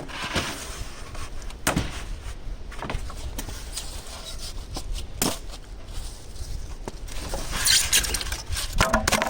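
Pieces of foam insulation board being handled: several separate knocks, then a squeaky scrape of foam about three-quarters of the way through.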